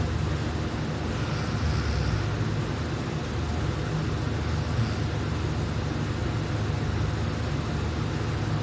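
A person snoring while lying asleep on her back with her mouth open: a low, steady droning with faint breath noises about every three and a half seconds.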